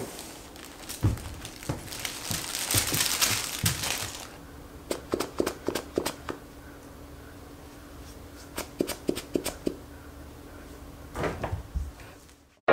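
A basketful of plush dog toys tipped out onto the floor and handled: rustling and crinkling with soft thuds for the first few seconds, then scattered light clicks and taps.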